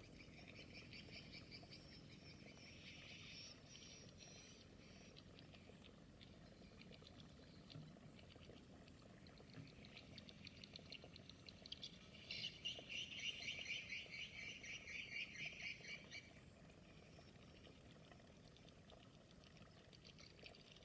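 Frogs calling in rapid pulsed trills, faint, in two bouts: one at the start and a louder one about twelve seconds in.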